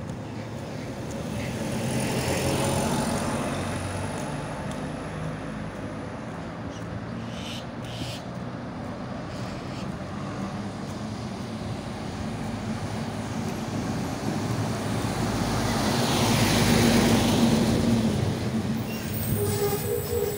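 Motor vehicles passing on the road, engine and tyre noise rising and falling: one goes by about two seconds in, and a louder one passes close near the end.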